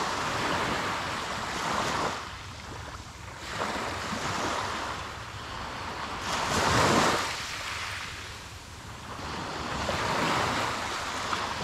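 Small waves breaking and washing up a sand-and-pebble beach, the hiss of the surf swelling and fading every few seconds.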